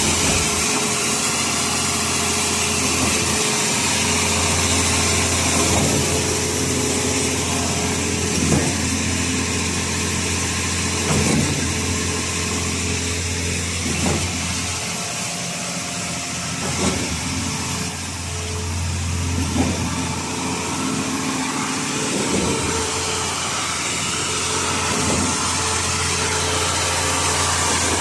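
Diesel engine of a concrete mixer pump running steadily, with a short knock about every three seconds, the rhythm of the pump's delivery cylinders changing stroke.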